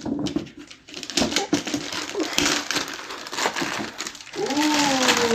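Gift wrap and packaging crinkling and tearing in quick, irregular crackles as a doll box is opened. Near the end a drawn-out, voice-like tone starts and slowly falls in pitch.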